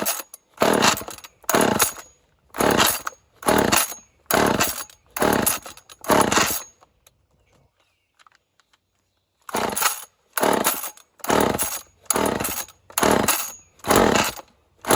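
A cold chainsaw with a home-rebuilt engine, on full choke, is being pull-started: a run of recoil-starter pulls, about one every 0.8 s, each briefly cranking the two-stroke engine without it catching. There is a pause of about three seconds midway, then another run of pulls.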